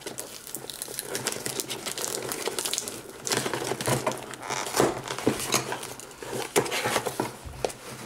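Packing tape being peeled and torn off a cardboard box by hand, a run of crinkling, crackling and tearing, with the cardboard flaps and plastic wrapping rustling.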